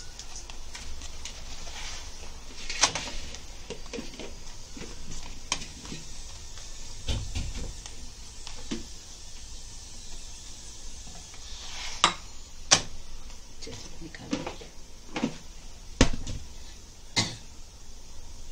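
Paratha sizzling faintly in a frying pan, with scattered sharp taps and knocks of a spatula and handling against the pan.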